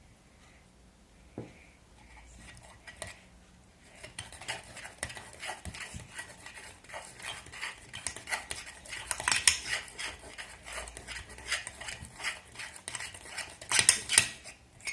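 A utensil stirring slime in a container, with rapid clacks and scrapes against the container's sides. It starts about four seconds in after a single knock and gets louder in spells.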